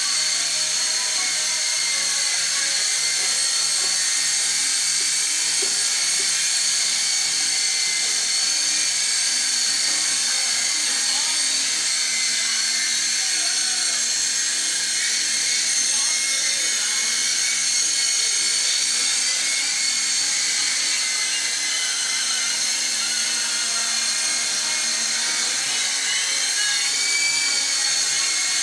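SYMA S032 radio-controlled toy helicopter in flight: its small electric motors and rotors making a steady high-pitched whine, with the pitch wavering slightly near the end.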